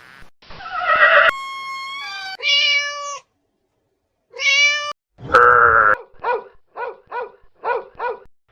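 A cat meowing: several drawn-out meows with falling pitch, then a run of about six short, quick mews near the end.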